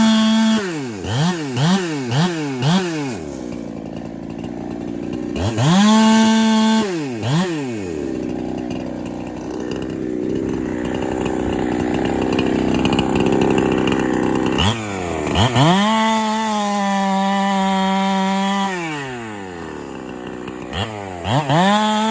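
Ported Holtzfforma 372 chainsaw, a two-stroke Husqvarna 372 clone running a 28-inch bar, blipped through several quick revs, then idling and revving again. In the middle it runs under load with a rougher, lower sound, as if cutting into maple, before screaming at full revs for a few seconds and dropping back to idle; the saw is still being broken in.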